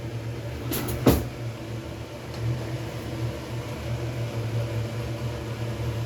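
Steady low kitchen hum, with a short clatter of utensils about a second in.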